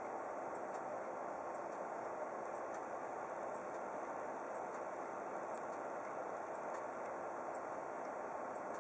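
Steady indoor background noise: an even hiss with a few faint, scattered high ticks.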